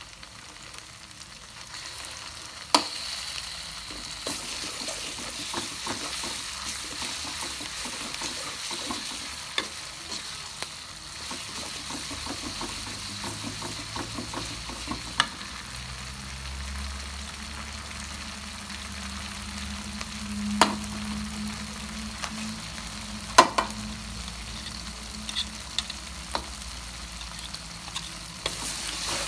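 Ground chili paste frying and sizzling in oil in a metal wok while it is stirred with a spatula, with a few sharp clacks of the spatula against the wok, the loudest about three seconds in and twice near the twenty-second mark.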